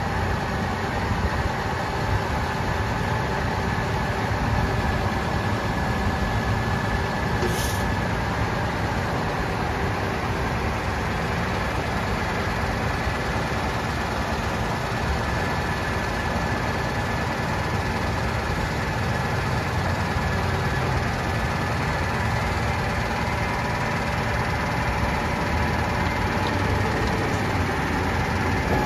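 Parked 2015 Freightliner 114SD vacuum truck running steadily: a loud, even mechanical noise with a constant whine over it.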